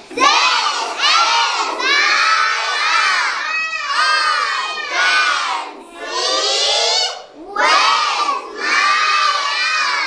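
A group of young children shouting loudly together in unison, in phrases of a second or two with short breaks between them.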